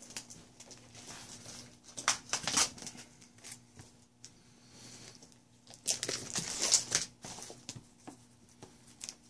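The wrapping of a boxed Blu-ray set is torn and crinkled by hand as the box is opened. There are a few short tearing sounds about two seconds in and a longer stretch of crinkling around six to seven seconds in.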